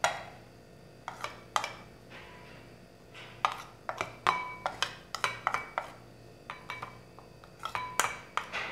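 Steel spoon clinking against a glass bowl and a plastic plate as spices are scooped and tipped onto raw mutton mince. About a dozen irregular clinks, some leaving a short ringing tone.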